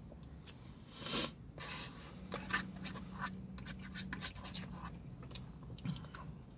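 Eating and handling food close to the microphone: scratchy rustling and scattered sharp clicks of a paper food wrapper and chewing, over a faint low steady hum.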